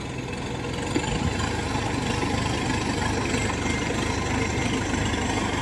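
Engine of a tracked rice-hauling carrier running steadily under load as it climbs a steep embankment with a full load of paddy sacks.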